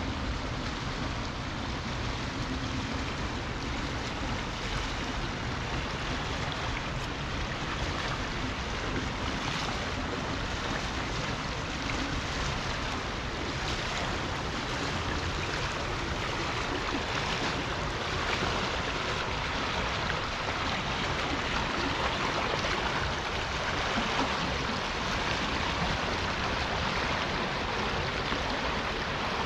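River water rushing steadily, a continuous even wash that grows slightly louder in the second half.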